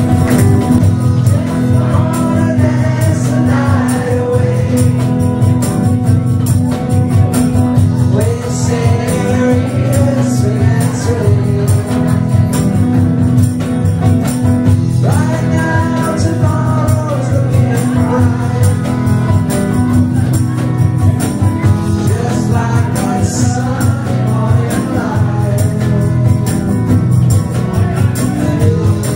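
Live band music: electric guitar playing a steady rhythm under sung vocals.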